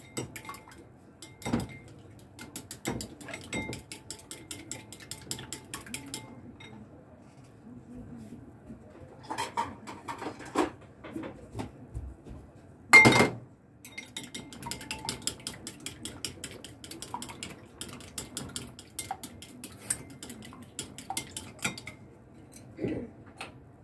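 Chopsticks beating raw eggs in a ceramic bowl: runs of rapid clicking taps against the bowl, with a pause near the middle. About halfway through there is one louder knock.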